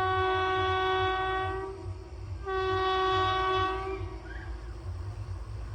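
Indian Railways electric locomotive horn sounding two blasts on one steady pitch, the first about two seconds long and the second about a second and a half, over the low rumble of the running train.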